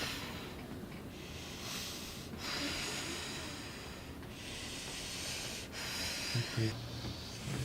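A person breathing audibly in and out, four or five airy breaths each lasting about a second and a half: a patient breathing through deep psoas pressure.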